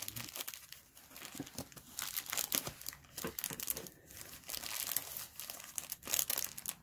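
Plastic poly mailer bag crinkling and rustling as it is handled and pulled open, a run of irregular quick crackles.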